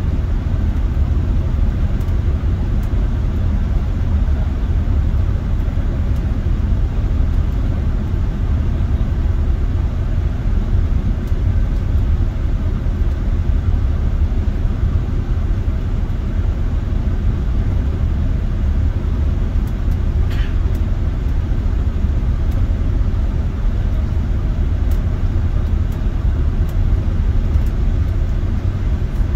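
Steady low rumble of a city bus's engine and tyres, heard from inside the moving bus. About two-thirds of the way through there is a brief high tone.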